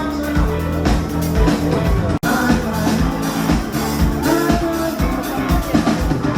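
Band music with a steady drum-kit beat and bass. It cuts out for an instant about two seconds in, an edit splice, then carries on.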